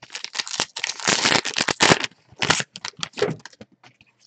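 Stack of Diamond Kings baseball cards being flipped through quickly in gloved hands: a rapid run of card-edge clicks and flicks, densest in the first two seconds, then thinning to scattered clicks.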